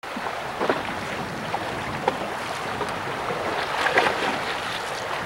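Steady wind and water noise on an open fishing boat, with a few faint short knocks.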